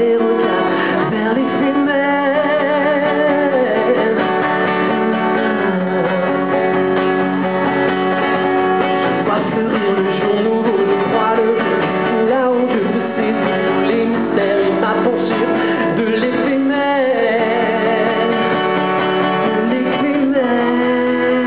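A man singing into a microphone while strumming an acoustic guitar, both amplified through a PA system. He holds long notes with a wavering vibrato.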